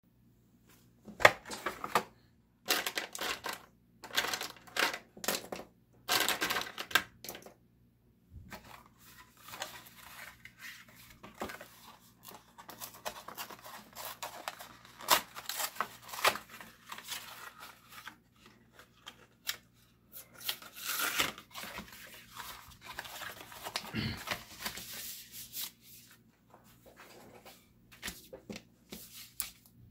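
Hands pulling apart and unfolding an Ilford photo paper cardboard box. There are sharp ripping and scraping noises of card in the first several seconds, then quieter rustling, clicks and rubbing as the flaps are worked open and the box is pressed flat.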